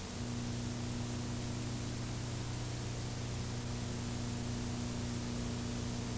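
Steady hiss from an old videotape recording, with a low, even hum that comes in just after the start.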